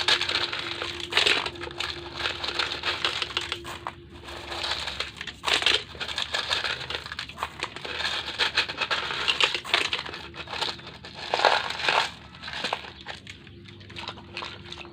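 Hands rummaging through loose coloured gravel: an uneven run of rustling and clattering of small stones, with a few louder scrapes. A faint steady hum sits underneath.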